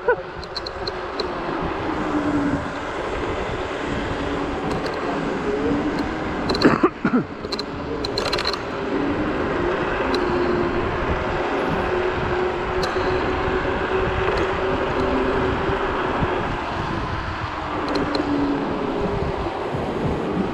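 Wind rushing over the microphone and road noise while riding a Zero 10x electric scooter along a city street at speed, with a steady, slightly wavering whine underneath. A few sharp knocks come about seven and eight seconds in.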